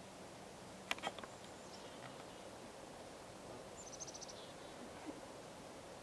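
Melting lake ice, faint and quiet, with a quick cluster of sharp clicks about a second in. A bird gives a short, high trill a little past the middle.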